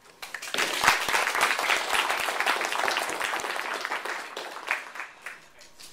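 Small group applauding: a burst of clapping that starts about half a second in and dies away near the end.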